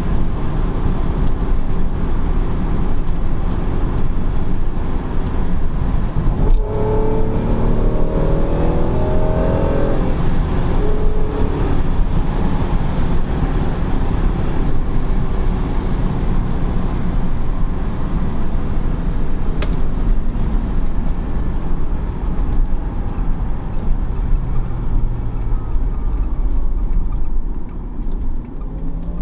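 Honda NSX's V6 engine running under way, with a steady rumble of road and wind noise. About seven seconds in, the engine note climbs in pitch as the car accelerates.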